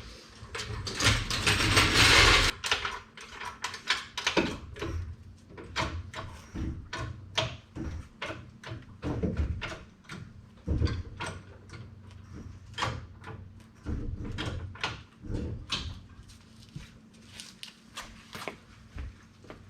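Hand tools and parts being worked on a Jeep during teardown: a run of irregular clicks and knocks, with a louder rushing noise about a second in that lasts a second and a half.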